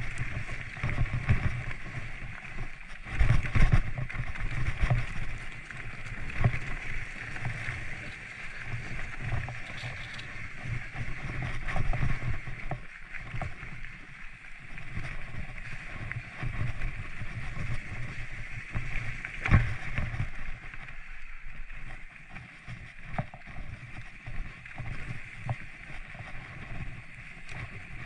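Mountain bike rolling over a rough trail: a steady rumble with frequent knocks and jolts, the sharpest about three seconds in and another near twenty seconds.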